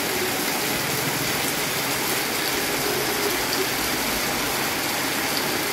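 Heavy rain pouring onto a paved street, a steady, even hiss.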